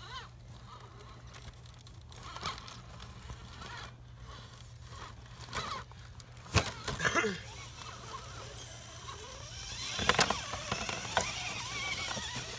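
RC rock crawler climbing granite boulders: its small electric motor and gears whine while the tyres scrape and the chassis knocks on the rock. There is a sharp knock about six and a half seconds in and a louder run of knocks and scraping around ten seconds in.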